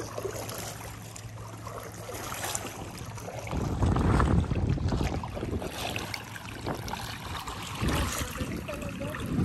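Paddle strokes dipping and splashing in lake water beside a stand-up paddle board, with wind rumbling on the microphone, strongest about four seconds in.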